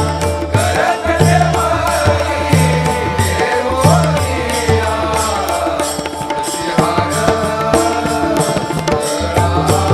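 Instrumental interlude of a Marathi devotional abhang: drums keep a steady repeating beat under a wavering melody line.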